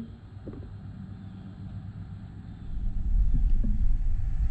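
A low rumble that swells up sharply about three seconds in and carries on, over a steady low background noise.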